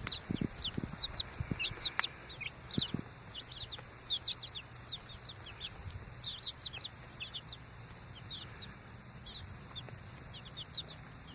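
A group of young chicks peeping steadily, with many short, high, falling cheeps overlapping throughout, and a few soft knocks in the first few seconds.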